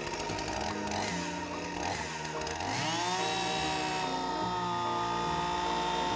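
Husqvarna two-stroke chainsaw running fast, its pitch dropping sharply about three seconds in as the chain bites into a rubber car tyre, then holding steady under the load.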